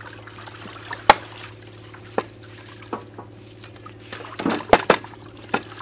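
A knife chopping raw chicken on a thick wooden chopping board: sharp knocks at uneven intervals, coming thick and fast near the end. Under them, water sloshes and trickles as leafy greens are washed by hand in a bowl of water.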